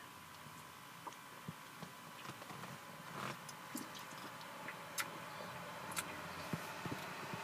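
Quiet room with faint, scattered small clicks, about one every half second to a second, and a brief soft rustle about three seconds in. No hiccup is clearly heard.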